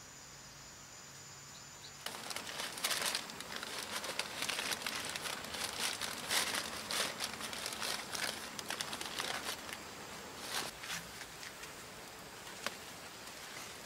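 Irregular crinkling and rustling, as of something being handled, starting about two seconds in and going on in dense bursts of crackles.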